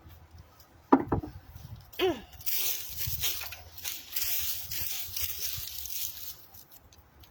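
Hands digging through loose soil in a raised garden bed: a sharp knock about a second in and a brief falling voice-like sound, then several seconds of steady scraping and rustling of dirt.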